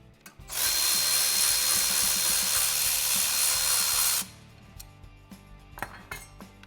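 A power tool runs steadily for about three and a half seconds, then stops abruptly. It is most likely a power driver spinning out one of the Torx T30 bolts that hold the motorcycle's stock exhaust heat shield.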